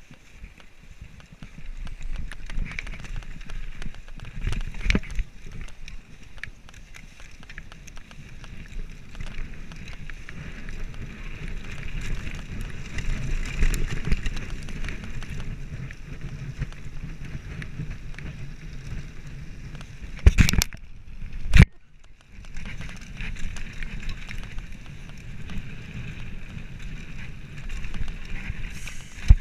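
Mountain bike descending a dirt trail: steady rumble of the tyres over the ground, with constant small clicks and rattles from the bike over bumps. Two sharp, loud knocks come about two-thirds of the way through.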